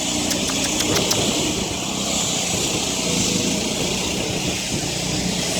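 Steady noise of street works and passing traffic, with a quick run of sharp taps in the first second.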